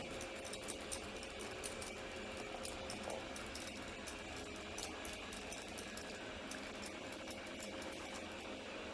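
Scattered light clicks and small metallic jingles, irregular and short, from a dog on an indoor leash moving about: its collar tag and leash clip rattling.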